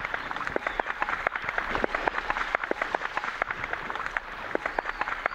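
A male hippo's tail whirling to spray its dung, a rapid irregular crackle of wet spatters. This dung-showering is believed to intimidate rivals and mark territory.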